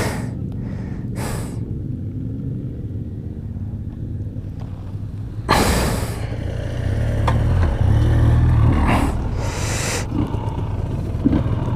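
Dry grass and brush rustling against a helmet-mounted camera as the rider shifts on the ground, in a few short loud bursts about a second in, around six seconds and around nine to ten seconds, over a steady low rumble.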